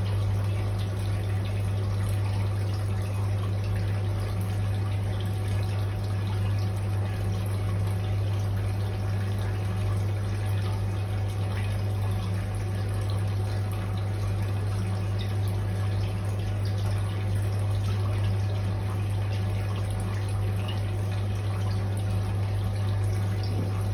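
Turtle-tub aquarium pump running steadily: a low hum under a constant trickle of moving water.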